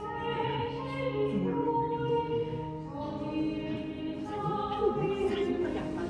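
Background music: a choir singing long held notes that shift in pitch every second or two.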